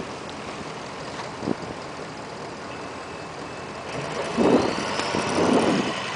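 2004 Ford F450 utility truck's engine running as the truck drives slowly past at a distance. Gusts of wind buffet the microphone and are loudest about four seconds in.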